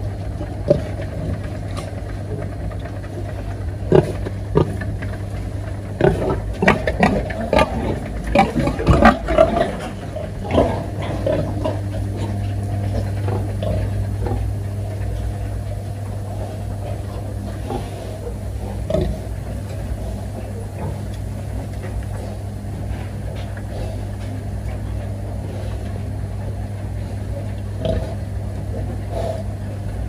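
Pigs in a farrowing pen grunting, with sharp knocks clustered in the first ten seconds or so and a few later, over a steady low mechanical hum.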